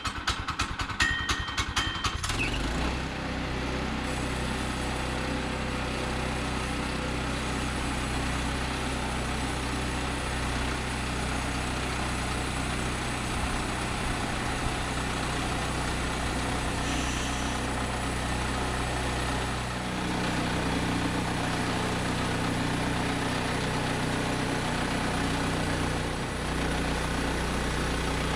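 Small gasoline engine of a Woodland Mills 122 portable bandsaw mill starting after a quick run of clicks about two seconds in, then running steadily, a little louder from about twenty seconds in.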